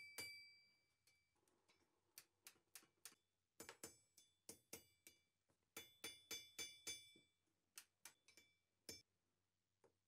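Hand hammer striking a red-hot iron bar on an anvil, working a bend to a square corner: faint, irregular ringing blows, with a quick run of about five strikes around six to seven seconds in.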